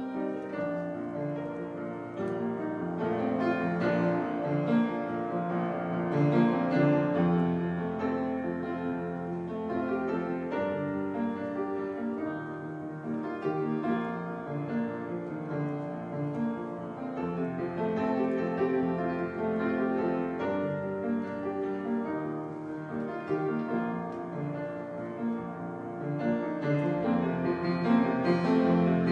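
Solo piano played on an upright acoustic piano: continuous flowing playing with many notes, swelling a little louder near the end.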